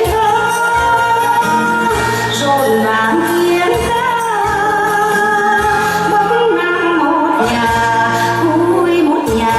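A song: a voice singing a melody over instrumental accompaniment with sustained bass notes.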